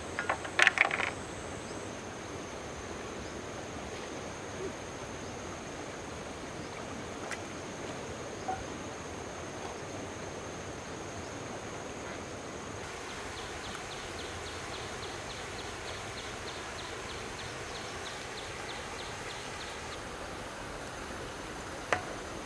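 Outdoor ambience: a steady high-pitched insect drone over an even hiss of flowing water. A short burst of noise comes about a second in, a rapid ticking of about three ticks a second runs through the middle, and a single sharp click sounds near the end.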